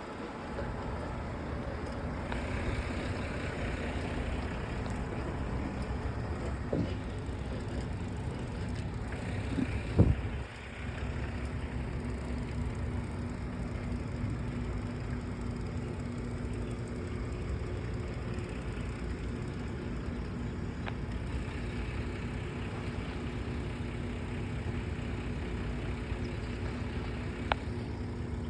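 Steady rumble of a vehicle engine running, with two thumps about 7 and 10 seconds in, the second the loudest, and a sharp click near the end.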